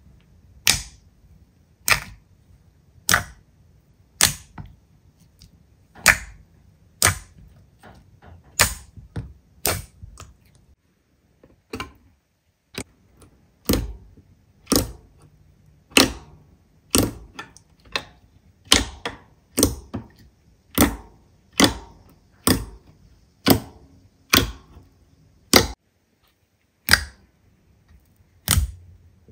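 Slime being pressed and poked, giving a series of sharp pops about once a second, a little faster in the second half after a brief pause.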